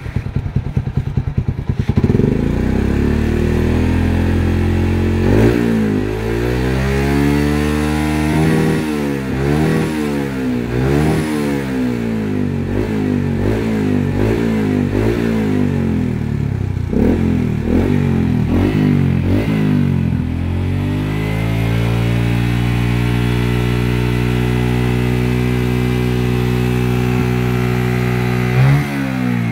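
Yamaha Jupiter MX single-cylinder four-stroke engine running through its stock muffler, which has been gutted, and a stainless steel header pipe. It idles at first, then the throttle is blipped over and over, about once a second, each rev rising and falling. It then holds a steady, faster idle, with one last sharp blip near the end.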